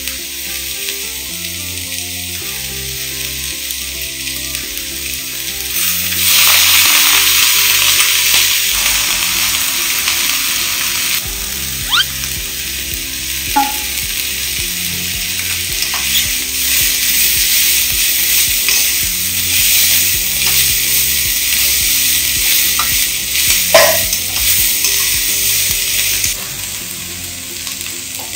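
Squid and vegetables sizzling in a hot hammered iron wok as they are stir-fried, with a few sharp clinks of the spatula against the wok. The sizzle grows louder about six seconds in and drops off near the end as the heat is turned off.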